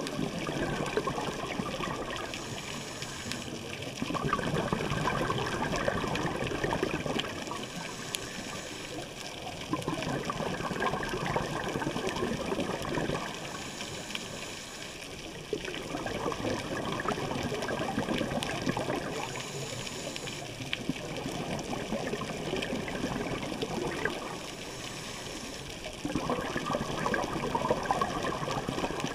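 Scuba diver's regulator releasing exhaled bubbles underwater, a rushing bubbling that comes in about five spells, one with each breath out, every few seconds, with quieter stretches between them.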